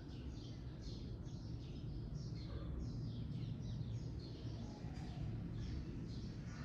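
A bird chirping over and over, short high notes sliding downward at about two a second, faint over a low steady hum.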